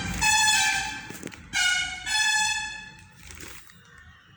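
A loud horn sounds in two long blasts, each stepping up and down in pitch like a short tune. The first ends about a second in, and the second starts about a second and a half in and fades out before three seconds.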